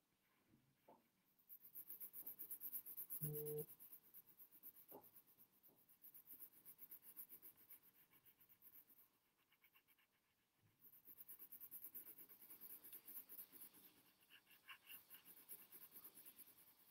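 Pencil shading on paper: faint, quick back-and-forth scratching strokes, strongest near the start and again from about eleven seconds in. About three seconds in, a brief low pitched sound.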